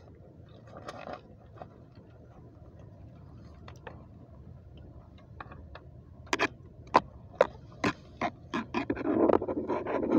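Freshly landed trout thrashing on the bank: a run of sharp slaps about two a second, then a rustle as it is gripped in a cloth near the end.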